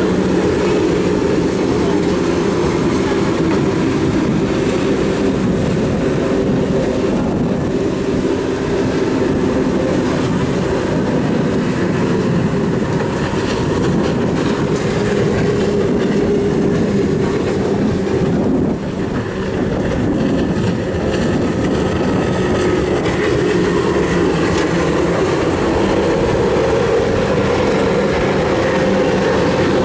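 Super Sport class racing powerboat engines running at speed: a loud, steady drone, with a short dip about two-thirds of the way through.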